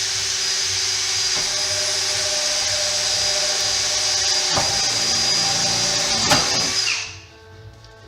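Electric drill running steadily with a high whine, boring through the car's sheet-steel body panel for a rivet. It stops about seven seconds in, just after a sharp click.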